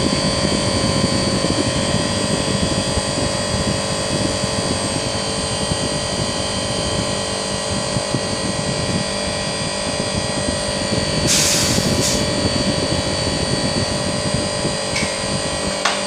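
Outdoor condensing unit of a Panasonic inverter air conditioner running under load, drawing about 16 amps after its refrigerant charge. The condenser fan and compressor make a steady whirring hum with several steady tones. There is a brief hiss about eleven seconds in.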